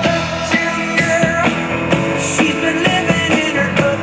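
Music with a steady drum beat from an FM radio station, played through an iHome hotel alarm clock radio's built-in speakers.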